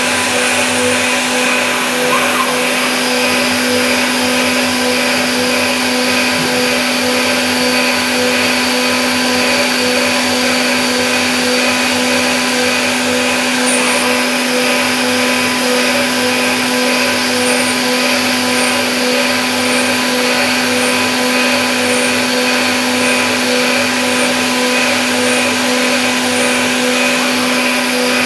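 CNC milling machine spindle running at steady high speed while a thread-milling cutter works in a hole in an aluminium block. A constant motor whine with a faint even pulsing.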